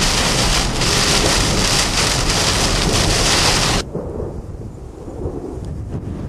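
Severe thunderstorm with wind-driven heavy rain lashing a car, a loud steady hiss. It cuts off abruptly about four seconds in, leaving a quieter low wind rumble.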